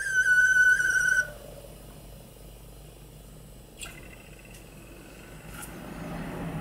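Bedini SSG pulse-motor circuit oscillating with a loud, high whine that sinks slightly in pitch and cuts off abruptly about a second in. After a sharp click near four seconds, a low hum builds toward the end as the rotor wheel spins.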